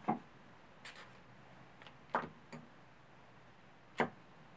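Oil dripping from a drained Piranha 140cc engine into a glass bowl of oil: a few sharp little ticks at irregular intervals, with a louder click about four seconds in as a wrench is handled at the bench.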